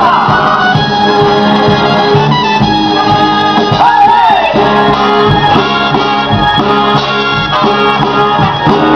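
Upbeat show-tune music from a live stage performance, amplified and loud, with a steady beat and no singing.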